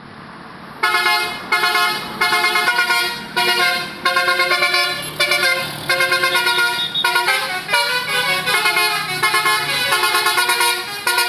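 Bus telolet horn, a Basuri multi-tone air horn, playing a tune of quick toots in runs with short gaps between them, starting about a second in.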